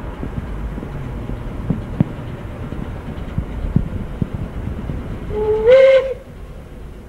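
DB class 23 steam locomotive 23 105 running with a passenger train: a steady rumble with scattered knocks, then one short whistle blast about five and a half seconds in that steps up slightly in pitch as it opens and is the loudest sound.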